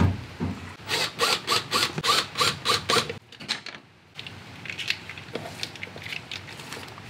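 A ratcheting hand tool clicking in a quick regular run of about five clicks a second for about two seconds, after a thump at the start. Fainter handling clicks follow after a short pause.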